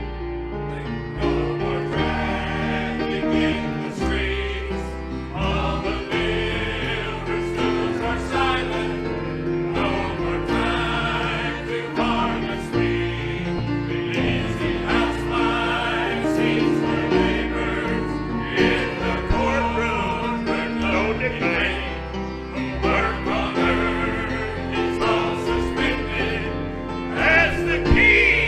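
A group of voices singing a gospel hymn with instrumental accompaniment, sustained bass and chord notes underneath.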